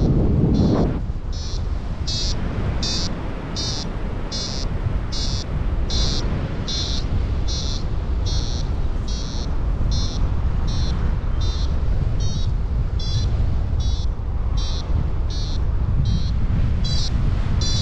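Paragliding variometer beeping in a steady series, about three short high beeps every two seconds: the vario's climb tone, the sign that the glider is rising in lift. Wind rushes over the microphone throughout, with a louder gust in the first second.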